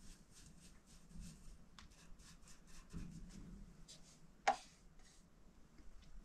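Paintbrush swishing in quick, even strokes across a wooden door frame, about three or four strokes a second, faint. About four and a half seconds in, a single sharp knock as the brush is dipped and tapped against the metal paint tin.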